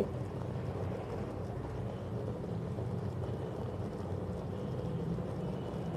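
Sugar-and-ghee syrup boiling hard in an aluminium pot on the stove, a steady low rumbling hiss with no separate pops. The syrup is at the point of being ready, near the one-thread stage.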